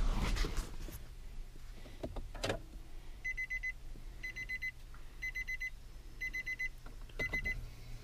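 A car's electronic warning chime beeping in quick groups of about four short high beeps, one group a second, starting about three seconds in. Before it come rustling and knocks in the driver's seat and a single click as the car is switched on.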